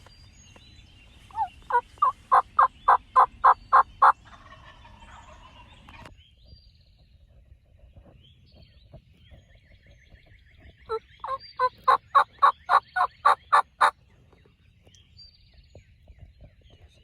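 Turkey calling: two runs of about a dozen evenly spaced loud notes, roughly four a second, the first starting about a second in and the second about eleven seconds in.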